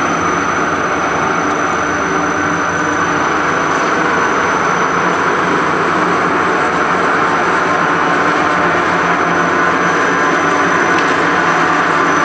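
Automatic tortilla production line running: a loud, steady mechanical noise that holds even throughout, with no starts or stops.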